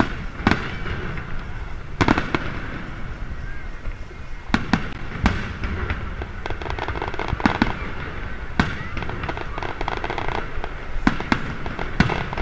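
Aerial firework shells bursting one after another, a sharp bang every second or two, with runs of rapid crackling in the middle from crackling stars.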